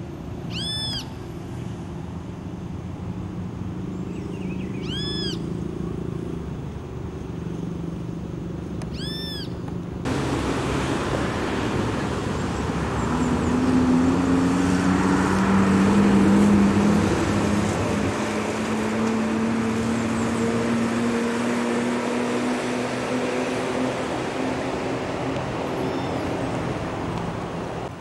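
Road traffic on a city avenue: a low steady engine hum, broken in the first third by three short, high chirping calls. The noise then jumps up suddenly and a vehicle's engine is heard climbing in pitch and passing, loudest near the middle, before easing off.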